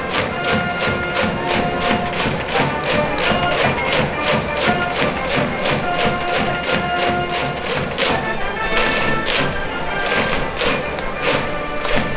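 High-school brass band cheering section playing a cheer tune in the stands, horns over a fast, steady drum beat.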